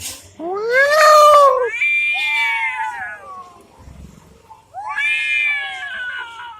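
Cats caterwauling in a fight: three long, drawn-out yowls that rise and fall in pitch, the first about half a second in and the loudest, the last starting near the five-second mark.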